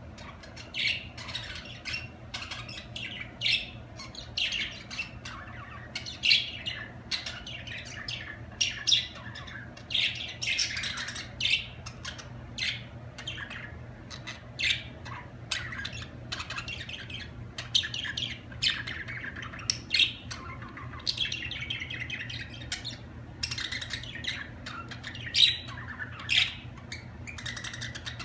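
Budgerigars chirping and warbling continually, a dense chatter of short high calls with sharper squawks standing out every second or so.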